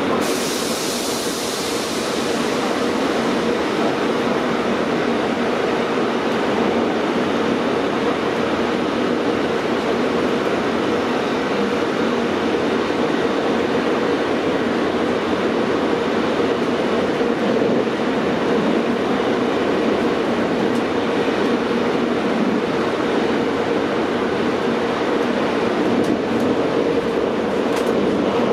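MI09 RER line A train running through a tunnel: steady rail running noise with a steady hum under it. A high hiss fades out over the first couple of seconds.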